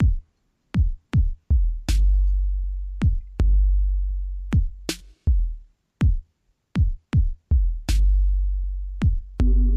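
Electronic music intro: a drum-machine beat of deep booming kicks that drop in pitch and sharp snare hits about every three seconds, with short silent gaps between hits. Near the end, steady held synthesizer tones come in.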